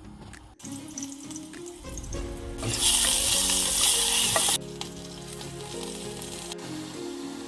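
Food sizzling as it fries in a hot pan, over background music; the sizzle is loudest for about two seconds in the middle and cuts off suddenly.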